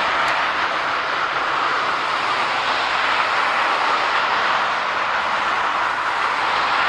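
Jet engine noise from a Boeing 737-400's CFM56 turbofans: a steady, even roar with no clear change in pitch.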